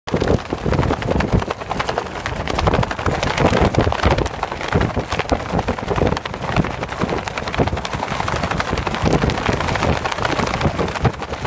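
Loose trouser fabric flapping hard in tropical-storm wind, in quick irregular snaps, over loud wind buffeting the microphone.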